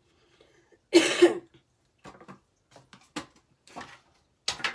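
A person coughing twice in quick succession about a second in, followed by a scatter of short clicks and taps of small items being handled.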